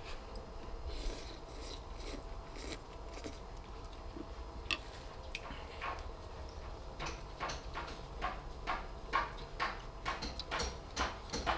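A person eating noodle soup: a soft slurp of noodles, then chewing and mouth smacks in short, scattered ticks that come much more often in the second half.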